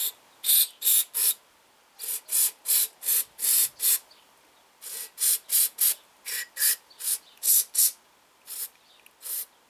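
Aerosol carburetor-cleaner spray fired through its thin red extension straw in short hissing bursts, about twenty of them in quick groups, flushing the parts of a Husqvarna 125R trimmer carburetor.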